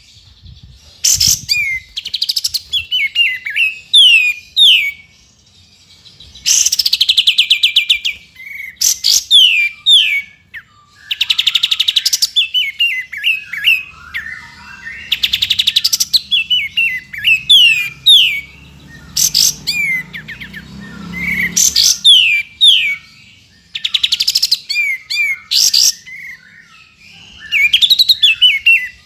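Kapas tembak bulbul singing: phrases of fast rattling trills alternating with runs of quick, falling whistled notes, repeated with short pauses between phrases.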